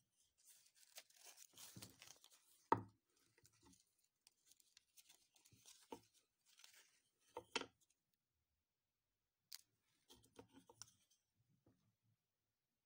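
Faint handling noise of small craft items being picked up and turned over: rustling in the first few seconds, a sharp knock a little under three seconds in, two quick knocks about halfway, and small clicks near the end.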